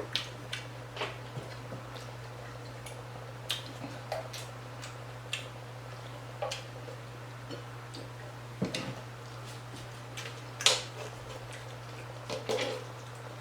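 Chewing on crunchy hard taco shells: scattered short crunches and mouth clicks at irregular intervals, the strongest about ten seconds in, over a steady low hum.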